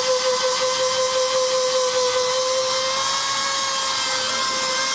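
Handheld electric rotary tool with a ball-shaped abrasive bit running at a steady high-pitched whine while buffing the rubber of a tyre inner tube, with a light hiss as the bit scuffs the rubber. Its pitch dips slightly about two seconds in. The buffing roughens the rubber around a blast hole so that rubber solution and a patch will stick.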